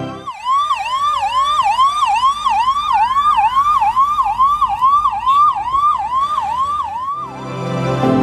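Emergency-vehicle siren in a fast yelp, about two rising-and-falling sweeps a second, with a second siren slowly rising and falling underneath. Background music comes back near the end.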